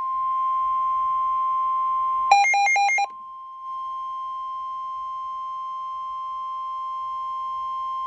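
Midland NOAA weather alert radio sounding the steady 1050 Hz warning alarm tone that comes before a National Weather Service warning. About two seconds in, the tone is broken for under a second by fast beeps that alternate between two pitches.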